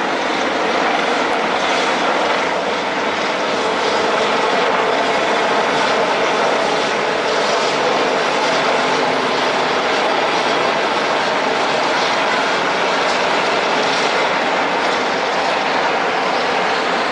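A formation of military helicopters flying over, their rotors and turbine engines making a loud, steady rushing noise that grows slightly a few seconds in.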